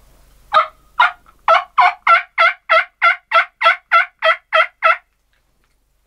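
Turkey yelping: a run of about fourteen loud, evenly spaced yelps, about three a second, each note falling in pitch, ending abruptly about five seconds in.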